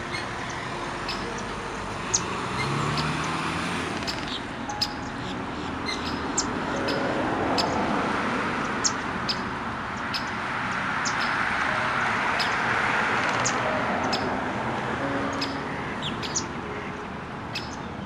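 Birds chirping in brief high calls, scattered every second or so, over a steady background rush that swells and fades.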